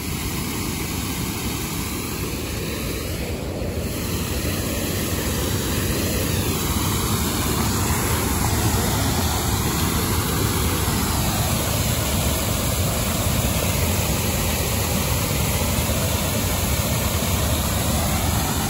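Steady rushing noise of a vehicle in motion, heaviest in the low range, with wind noise mixed in.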